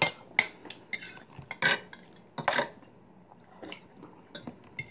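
Metal spoons and forks clinking and scraping against ceramic soup bowls and a plate during a meal: a string of irregular sharp clinks, the loudest right at the start and about one and a half and two and a half seconds in.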